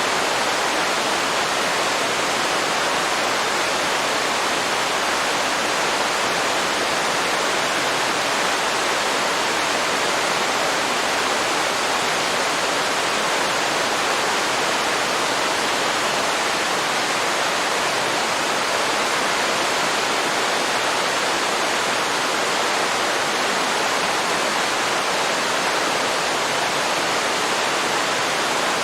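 Waterfall pouring into a river: a steady, unbroken rush of water.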